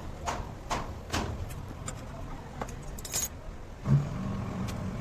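Light metallic clicks and taps, a few a second, then about four seconds in a thump as a motor starts and keeps running with a steady low hum.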